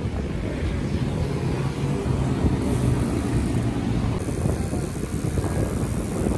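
Road traffic: a motor vehicle's engine running close by, its steady hum fading out about four seconds in, over a low rumble of road noise.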